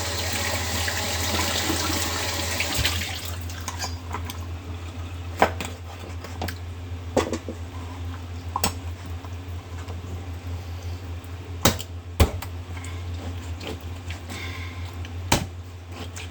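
Water running or pouring for about three seconds, then scattered knocks and clinks of pots and utensils, over a steady low hum.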